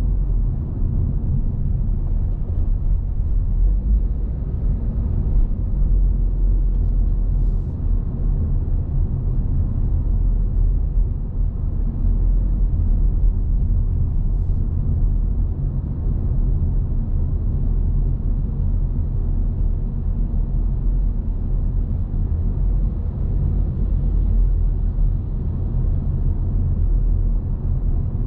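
Car being driven: a steady, low rumble of road and engine noise.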